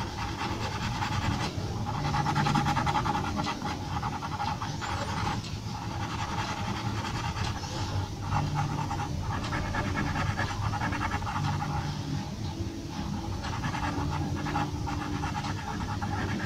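Graphite pencil scratching on paper in quick, repeated shading strokes. The rhythmic hiss pauses briefly between runs of strokes.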